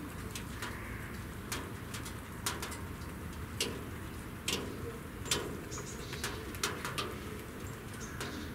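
Pigeons cooing low in the background, with a dozen or so sharp, irregular clicks or taps scattered through it.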